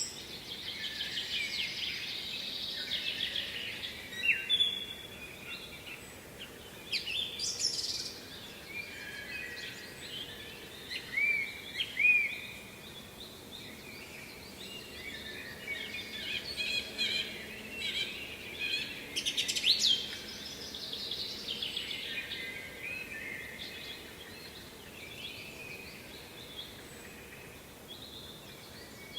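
Several songbirds singing and calling in a varied chorus of short chirps, trills and upswept notes, with a few louder phrases standing out, over a faint steady background noise.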